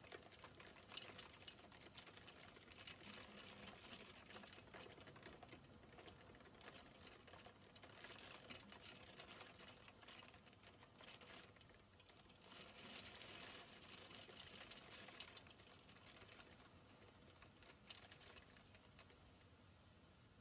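Hail falling: a faint, dense pattering of many hailstones ticking against the window glass, swelling and easing in waves.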